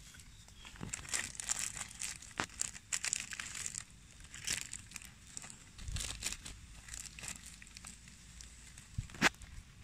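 Clear plastic grafting film crinkling and rustling as it is handled around a mango graft, with a single sharp click a little past nine seconds in.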